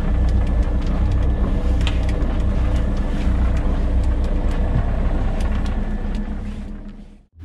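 Boat engine running at idle, a steady low hum, with scattered light clicks and knocks; it fades out just before the end.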